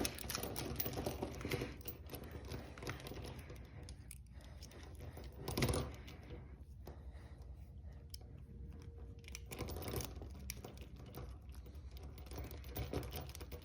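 Light, irregular clicking and scraping of lock picks working a padlock, with one louder knock about six seconds in.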